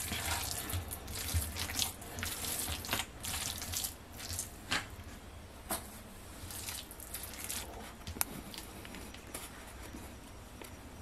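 Wet squelching of a hand kneading raw minced chicken mixed with chopped vegetables and a little water. The squishes come quick and irregular at first and thin out over the second half.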